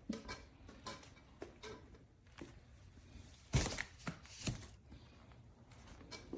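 A series of irregular knocks and thuds, the loudest about three and a half seconds in, with a couple more near one second and four and a half seconds.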